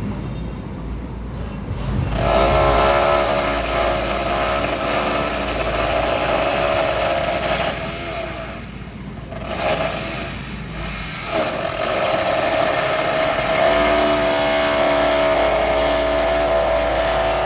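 Construction machinery running: a steady mechanical drone with a high whine that builds up about two seconds in, easing off briefly twice in the middle.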